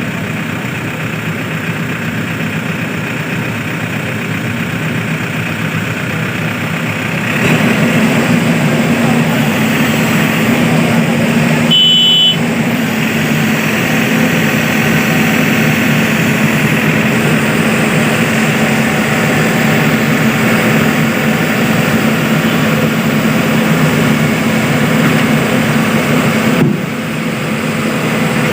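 Heavy diesel machinery engine running steadily, stepping up to a louder, harder-working note about seven seconds in and easing off briefly near the end.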